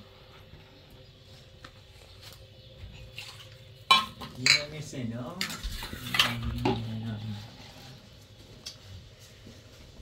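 Metal dishes and utensils clattering: light knocks, then two sharp ringing clinks about four seconds in.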